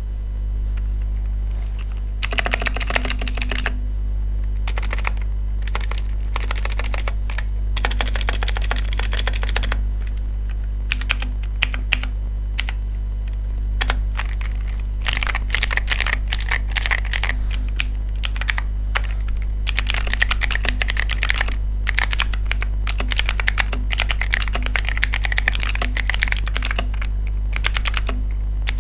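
Typing sound test on an Aula F3018 mechanical keyboard with clicky blue switches, dampened with foam and masking tape inside the case. Short bursts of keystrokes come at first, then continuous fast typing from about halfway through, over a steady low hum.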